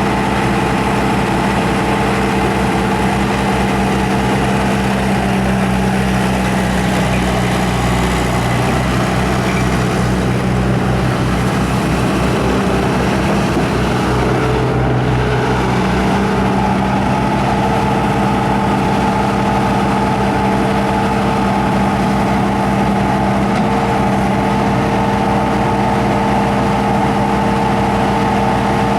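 Bobcat T300 tracked skid steer's turbo-diesel engine running steadily. About a quarter of the way in its note drops lower for several seconds, then comes back up to the earlier speed.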